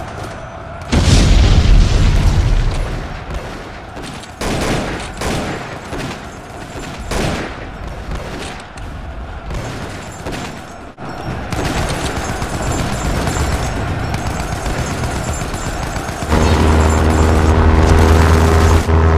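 Battle sound effects: a large explosion about a second in, then scattered gunshots. Near the end a loud, deep engine drone sets in.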